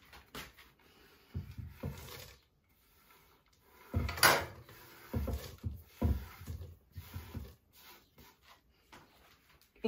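Chocolate chips tipped into muffin batter in a mixing bowl and folded in with a spatula: a few scattered knocks and scrapes against the bowl, the loudest about four seconds in.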